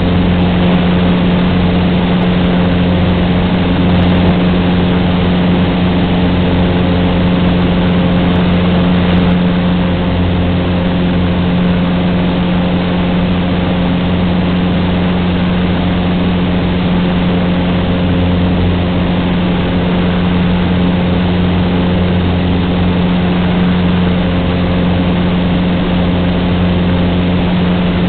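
Cessna 150's Continental O-200 four-cylinder engine and propeller running at steady power, a constant drone with a strong low hum.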